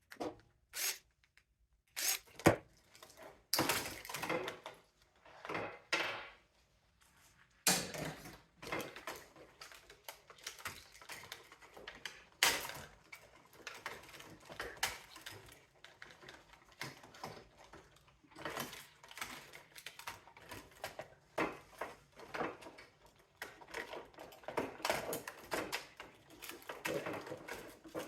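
Hand disassembly of a mini split air-conditioner unit: irregular clicks, knocks and rattles of screws, hand tools and the unit's plastic and metal housing being handled. The sharpest knock comes about two and a half seconds in.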